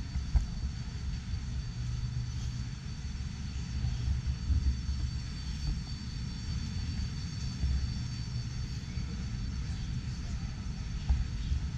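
Steady low rumble of background noise in a large exhibition hall, with a faint steady high-pitched whine above it.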